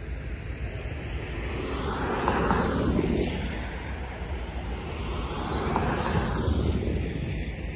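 Two road vehicles passing one after the other on the road close by, tyre and engine noise swelling and fading, the passes about three and a half seconds apart.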